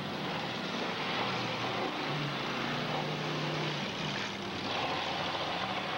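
Demolition derby cars' engines running hard as the cars shove into each other: a dense, steady wash of engine and exhaust noise.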